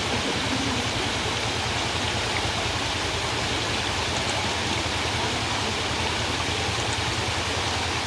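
Mahipar waterfall: several thin falls pouring down a rock face into a pool, a steady, even rush of water.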